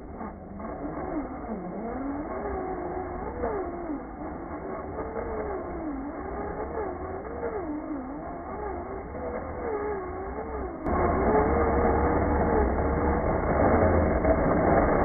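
Brushless electric motor of an RC rock-buggy truck whining as it drives, its pitch rising and falling constantly with the throttle, over a low rumble from the drivetrain and terrain. About eleven seconds in the whole sound suddenly gets louder, with more rumble.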